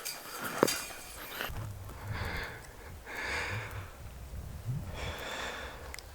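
A person breathing hard, several short breaths a second or two apart, over a low rumble.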